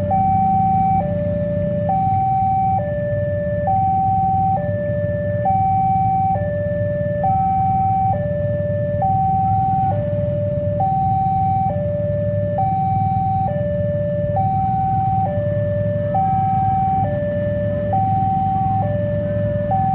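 Railway level-crossing siren sounding its warning of an approaching train, alternating steadily between a higher and a lower note, each held just under a second, over a steady low rumble.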